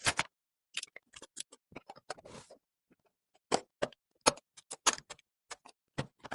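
Irregular sharp clicks, taps and knocks of computer hardware being handled, with a brief rustle about two seconds in.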